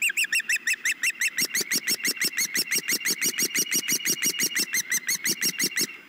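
Juvenile osprey calling: a loud, rapid run of shrill chirps, about six a second, that stops just before the end.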